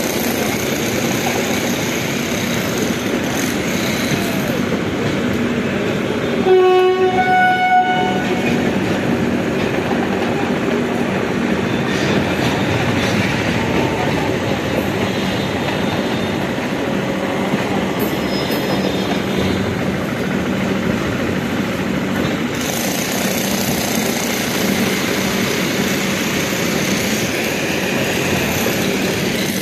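Express train coaches rolling past close by: a steady rumble and clatter of wheels on the rails. About a quarter of the way in, a train horn sounds once for about one and a half seconds.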